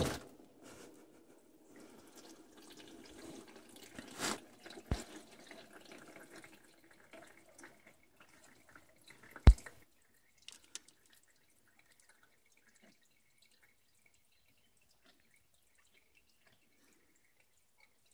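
Used engine oil pouring from the drain hole of a Toyota 5.7 L i-Force V8's oil pan into a catch pan, with the drain bolt just removed. It is a splashing, running stream that grows faint after about ten seconds as the oil drains. A sharp knock comes about nine and a half seconds in, the loudest sound.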